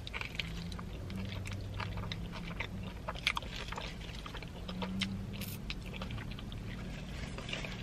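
A person biting into and chewing a soft burrito of rice, beans and vegetables close to the microphone: many small wet mouth clicks and smacks, with a few sharper ones around the middle.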